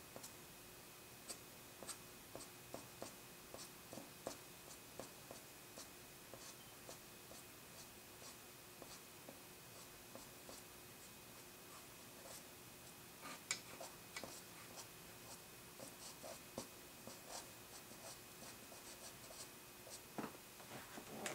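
Faint, short, irregular scratching strokes of an eraser stick dragged across charcoal on drawing paper, lifting highlights in hair, over a faint steady hum.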